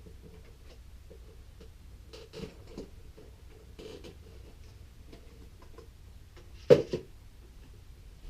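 Handling noises in a small room: scattered faint clicks and taps, with one sharp, louder knock about two-thirds of the way through.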